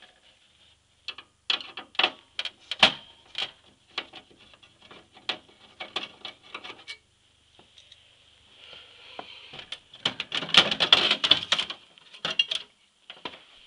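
Hands working inside a Power Mac G4's metal case to remove the hard drives: irregular clicks, knocks and rattles of cable connectors and the metal drive mounting, thickest near the end.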